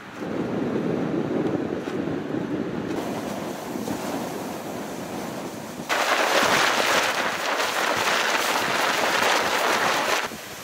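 Strong wind buffeting the microphone as a low rumble. About six seconds in it turns into a louder, hissing sandstorm gust, with tent fabric flapping and fluttering rapidly.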